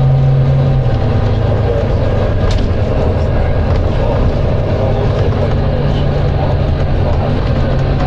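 Volvo B9TL double-deck bus's diesel engine running with a steady low drone that changes note about a second in.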